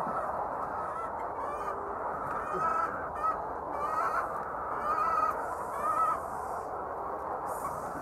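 A large flock of white laying hens calling in a dense, steady hubbub, with about half a dozen louder single calls standing out between about two and six seconds in.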